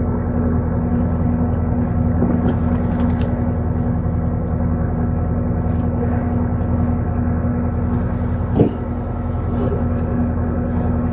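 Marine engine running steadily at a constant speed. One sharp knock comes about eight and a half seconds in.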